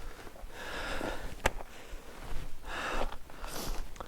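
A man breathing heavily into a close microphone, two or three long hissing breaths, with a single sharp click about one and a half seconds in.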